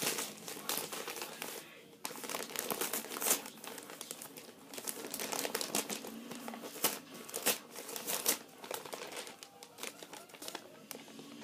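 Gift wrapping paper crinkling and rustling as a package is unwrapped by hand, with irregular sharp crackles throughout and a brief lull about two seconds in.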